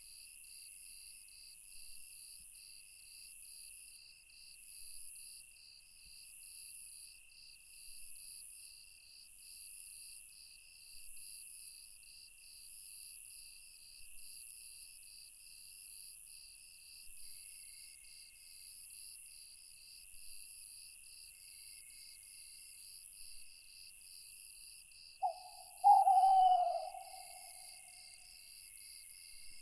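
Night forest ambience: a steady chorus of crickets and other insects chirping in an even pulse. Near the end comes a single short hoot-like call, about a second long and falling slightly in pitch, typical of an owl.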